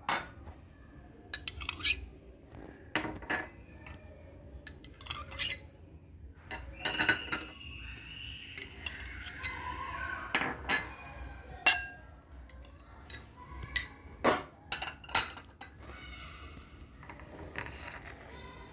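A metal spoon clinking and tapping against a glass mixing bowl and small ceramic dishes as pieces of cut fruit are scraped and dropped in: scattered, irregular sharp clinks.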